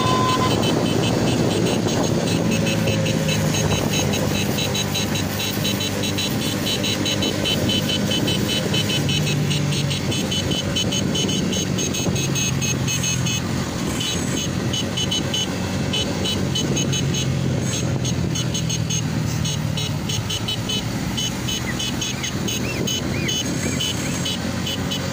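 Tractor engines running steadily as the convoy drives along, with a fast, even ticking over the engine note.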